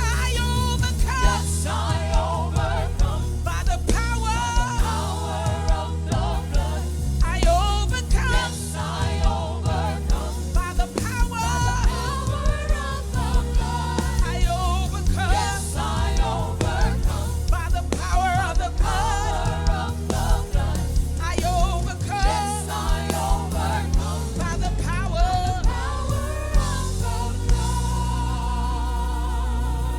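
Gospel song performed live: singing over a band with a steady bass line and beat. The singing drops out near the end, leaving the band with a held chord.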